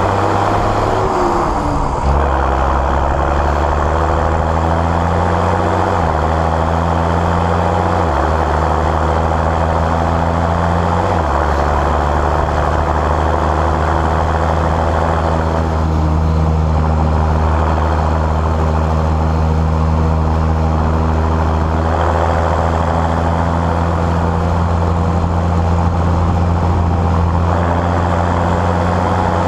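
John Deere 6910S tractor's six-cylinder turbo diesel running under way, its engine note shifting up and down in steps a few times in the first ten seconds or so, then holding steady.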